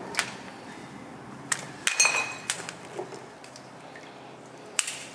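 A handful of sharp, scattered clinks and knocks against hard rock. The loudest, about two seconds in, has a short metallic ring, and another comes near the end.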